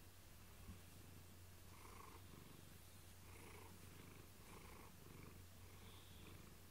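Domestic cat purring faintly and steadily, with soft swells that repeat about once a second.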